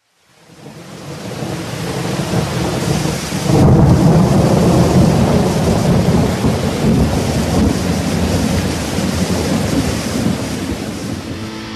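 Thunderstorm: steady hissing rain with low rumbling thunder, fading in from silence and swelling to a louder roll of thunder about three and a half seconds in.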